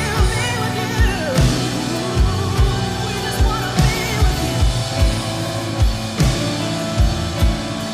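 Live worship band playing: a kick drum on a steady beat of about two a second under guitar and sustained chords, with a wavering voice singing in the first few seconds.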